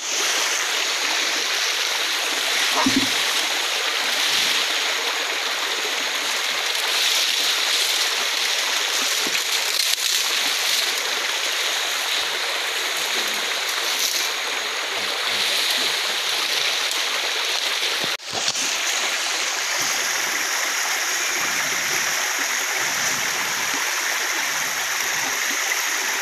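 Steady rush of a stream running over rocks, broken off for an instant about two-thirds of the way through.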